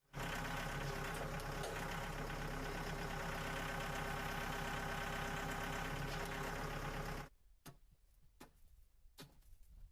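An engine runs steadily, then cuts off abruptly about seven seconds in. A few sharp knocks follow, spaced under a second apart.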